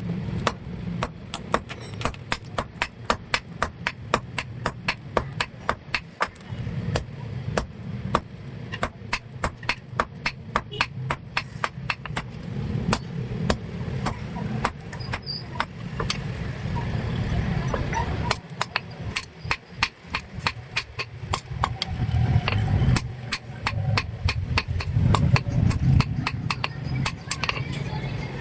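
Hand hammer striking iron in quick, even blows, about two a second, thinning out in the second half and picking up again near the end: an iron rod being hand-forged into a brick chisel.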